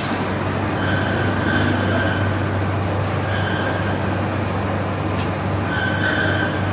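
Heavy machine-shop noise, with machinery running under a steady low hum and a constant high whine. A squeal comes and goes several times, and there is one sharp click about five seconds in.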